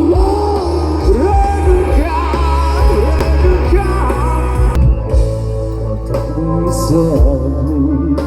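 Live band playing a song: a singer's voice over bass and drums, with the bright high cymbal sound dropping out about five seconds in.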